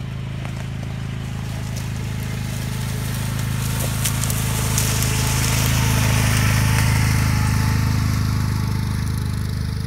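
UTV engine running at a steady speed, growing gradually louder to a peak about seven seconds in and then easing off.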